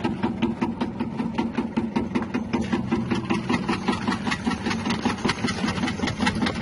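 Electric cassava chip slicing machine running, its 180-watt motor humming steadily with a rapid, even ticking from the rotating cutter.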